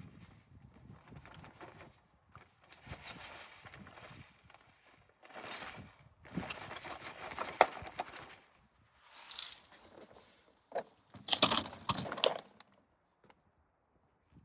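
Granular calcium cyanamide fertilizer (Perlka) poured from a bag into the plastic hopper of a tractor-mounted Niplo broadcast spreader: a hissing rattle of granules in about five pours, with the bag rustling, the loudest pour near the end.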